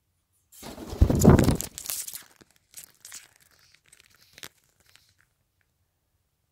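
Loud rustling and scuffing close to the microphone, strongest for about a second starting a second in, then a few softer rustles and sharp clicks: the camera being jostled as the Indian ringneck parrot goes for it.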